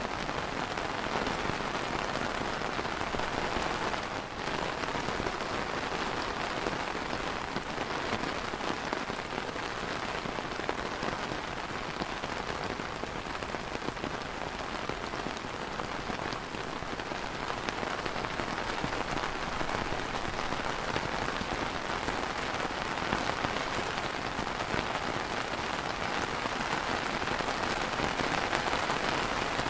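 Light rain falling steadily on a clear plastic umbrella canopy, an even wash of drops striking overhead.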